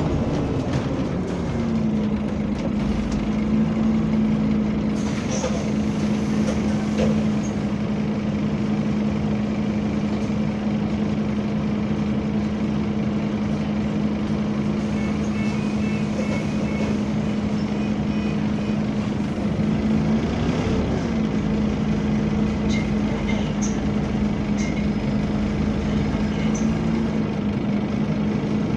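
Scania double-deck bus's cooling fan running, a steady drone heard from inside the lower deck over the bus's running noise. The drone falls in pitch and settles about a second and a half in, then wavers briefly around twenty seconds in.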